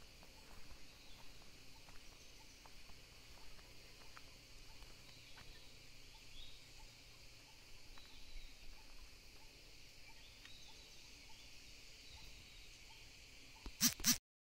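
Quiet plantation ambience: a steady high-pitched drone of insects, with a few faint bird chirps and scattered soft ticks. Near the end come two loud knocks, and the sound cuts out for a moment.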